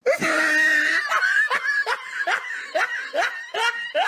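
A person's contagious laugh: about a second of a drawn-out high-pitched opening, then a run of about eight short rising 'ha' pulses, some two to three a second.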